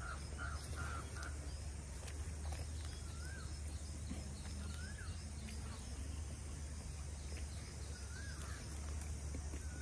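Outdoor ambience: a bird repeating a short rising-and-falling whistled note every second or two, with a few quicker chirps near the start, over a steady low hum.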